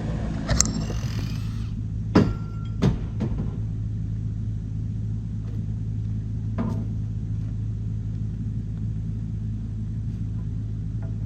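Engine idling with a steady low rumble, broken by two sharp knocks about two and three seconds in and a fainter knock near seven seconds.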